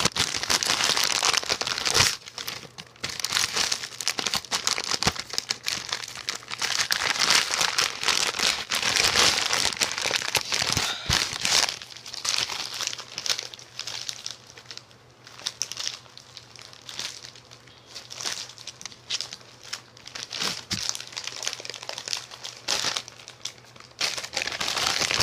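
Shipping package crinkling and rustling as it is wrestled open by hand, in uneven spells: heavy in the first half, lighter and more scattered later, heavier again near the end.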